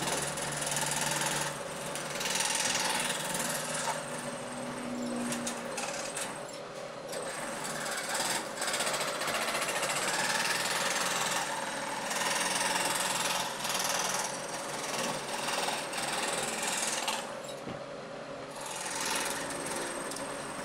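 Table-mounted jigsaw with an overhead arm running, its reciprocating blade cutting a fretwork pattern through a wooden board. It makes a steady, dense sawing noise that dips and swells as the board is fed and turned.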